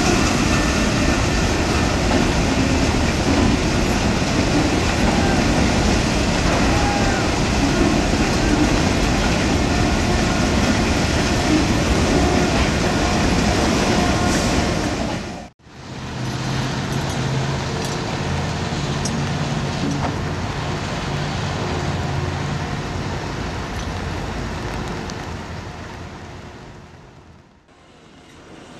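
Railroad freight cars rolling slowly on the track during a switching move: a steady rumble of wheels on rail. After a break about halfway, a steady low hum is heard, and the sound fades near the end.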